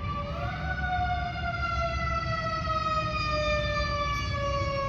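Emergency vehicle siren wailing. Its pitch rises briefly just after the start, then falls slowly and steadily, over a steady low rumble.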